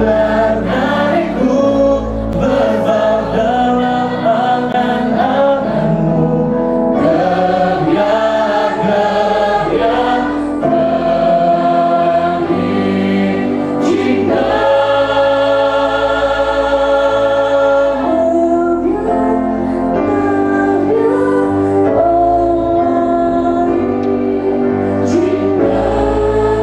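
A choir and a hall full of voices singing together, with several long held notes partway through.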